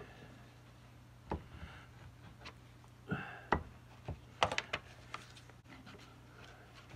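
Kraft gasket paper rustling under the hands and a few scattered light knocks and clicks of small parts on a workbench, over a steady low hum.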